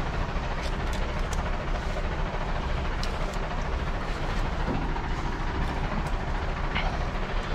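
A few light metal clicks as a ratchet strap's buckle and webbing are handled and threaded, over a steady low rumble.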